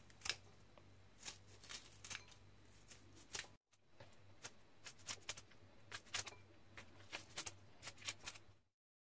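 Kitchen scissors snipping through a bundle of green onions, an irregular run of short, crisp cuts, one or two a second, with a brief break partway.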